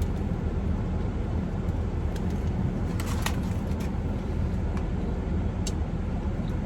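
Car air conditioning running steadily as a low rumble with a hiss on top, with a few faint clicks about halfway through and again near the end.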